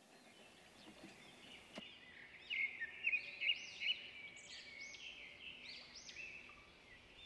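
A small songbird chirping and twittering in quick, repeated phrases, starting about two and a half seconds in, with a single faint click just before.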